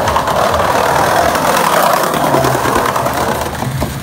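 Skateboard wheels rolling over a tiled walkway: a steady rough rolling noise with small clicks, easing off near the end.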